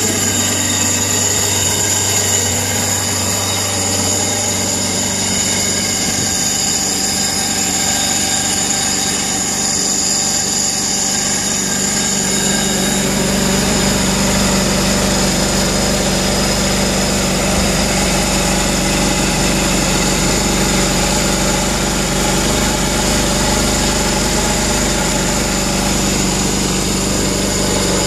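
Sea-Doo RX DI's two-stroke twin-cylinder engine idling steadily on land, running on a garden-hose flush. About twelve seconds in its sound grows deeper and fuller.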